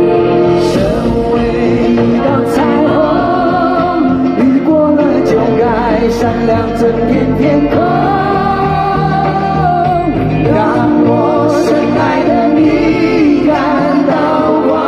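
Two male singers performing a pop song live with band accompaniment over a concert sound system, holding long notes with vibrato.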